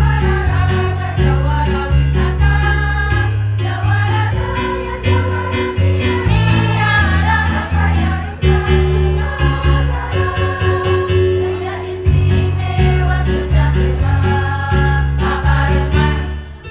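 A women's choir singing in several parts, over a low sustained accompaniment whose bass notes change in steps.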